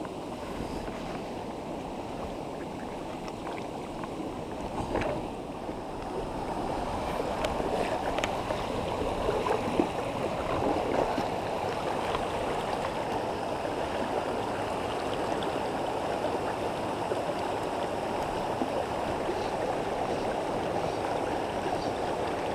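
Shallow rocky stream rushing over stones in a steady rush that grows louder about six seconds in, with a few light knocks.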